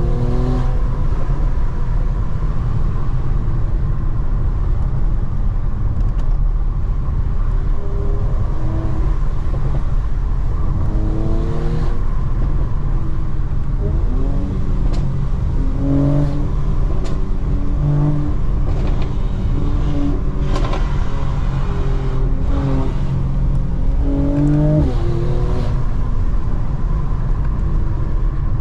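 2020 Mercedes-AMG C43's 3.0-litre twin-turbo V6 driving under way over a steady low road rumble. The engine note climbs under acceleration and drops back at gear changes several times.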